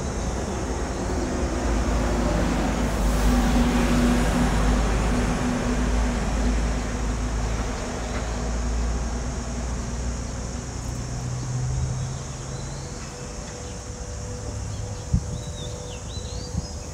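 A motor vehicle passing in street traffic: a low engine rumble swells over the first few seconds and fades away, followed by a single sharp knock near the end.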